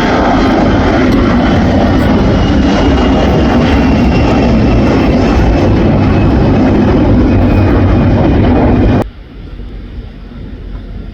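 Loud, steady jet airliner engine noise from a nearby passing plane, with a faint, slowly falling whine. It cuts off suddenly about nine seconds in, leaving a much quieter background.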